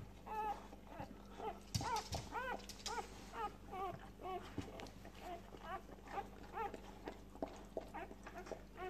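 Newborn Springer Spaniel × Kelpie puppies squeaking: many short, high, arching squeaks, two or three a second, with a soft thump about two seconds in.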